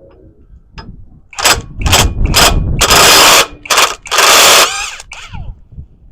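Impact wrench rattling in three short bursts and then longer runs, ending with a brief falling whine as it spins down. It is working loose the flywheel bolts on a 2009 smart car.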